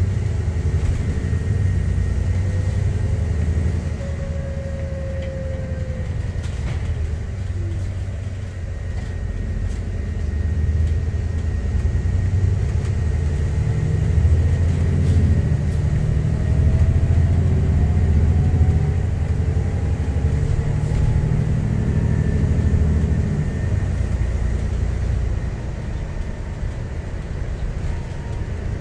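Alexander Dennis Enviro 400 MMC double-decker bus heard from inside while on the move. A deep engine and road rumble runs throughout and swells in the middle, with a faint whine that rises and falls in pitch as the bus is driven.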